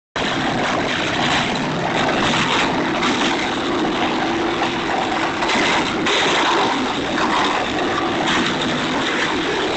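Wood chipper running: a loud, steady machine noise with irregular swells every second or so.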